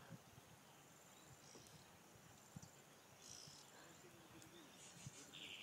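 Faint insect trilling, a high, thin trill repeating in short even bursts, with a few faint chirps around it.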